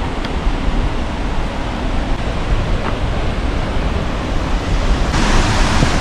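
Steady rushing roar of a waterfall, which turns brighter and louder for about the last second.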